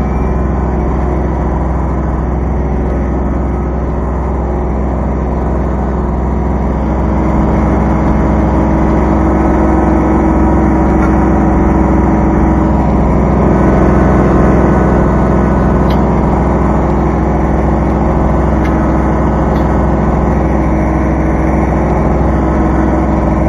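Kubota B2320 compact tractor's three-cylinder diesel engine running steadily, getting a little louder partway through.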